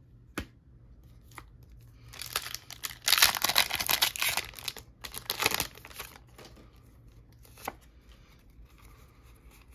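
Foil booster pack of Pokémon cards being torn open, with crinkling. It comes as a burst of tearing and crinkling from about two to six seconds in, with a few light clicks from the cards being handled around it.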